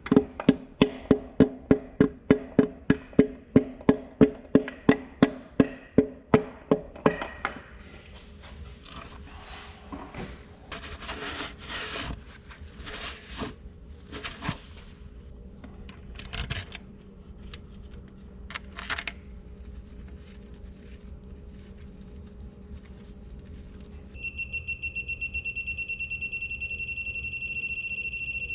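A run of sharp, ringing metal taps, about three a second, for the first seven seconds, then scattered handling noises. Near the end a digital torque wrench beeps steadily on a connecting rod cap bolt, the signal that it has reached its set torque.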